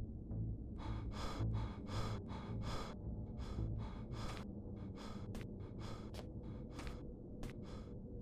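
A man panting heavily and out of breath: short, quick breaths of about three a second that slow and thin out toward the end, over a low steady hum.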